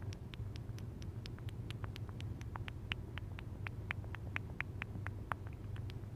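Rapid lip pops made with the mouth, a fast run of sharp clicks at about five or six a second, over a steady low hum.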